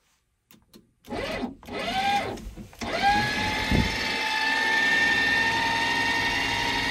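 Electric drive motor of a surveillance van's joystick-controlled observation mast and cupola whining. It gives two short spin-ups that rise and fall in pitch, then runs as a steady whine from about three seconds in, creeping slowly higher in pitch. A low knock comes near four seconds in.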